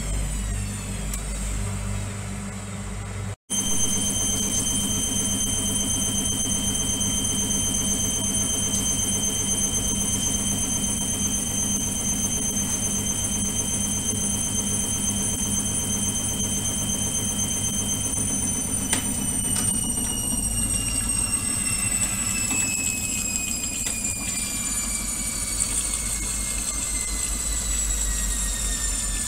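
Indesit washing machine's motor whining steadily over a low rumble as the drum turns with water and suds during the wash. The sound drops out for an instant about three seconds in, and over the last ten seconds the whine slowly falls in pitch as the drum slows.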